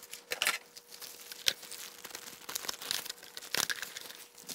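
Plastic packaging crinkling and rustling as a keyboard's clear plastic dust cover and protective wrap are handled, in irregular crackles with a sharper one about one and a half seconds in.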